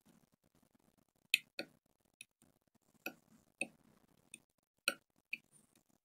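About eight sharp, light clicks at irregular intervals: small metal hand tools tapping and scraping on a phone motherboard while its broken USB-C port pads are cleaned for soldering.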